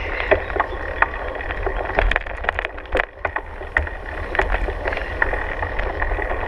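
Wind rumbling on the microphone, with frequent short knocks and clicks scattered throughout.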